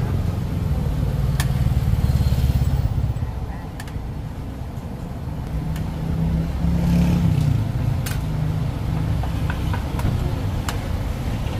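Motorbike engines running and passing on the street, swelling twice, over the sizzle of a wok of deep-frying oil, with a few short metallic clinks from the utensils.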